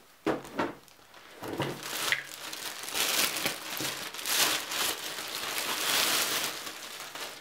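Clear plastic bag around a radiator crinkling as it is handled and pulled open. A few short rustles come in the first two seconds, then a denser crinkling runs until near the end.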